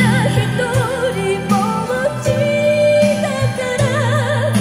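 A recorded song played through an IWISTAO 3-inch full-range speaker in a bamboo cabinet, driven by a 6P1 tube amplifier and heard through a smartphone microphone. A singer's voice wavers in wide vibrato over a sustained accompaniment, holding one steady note in the middle.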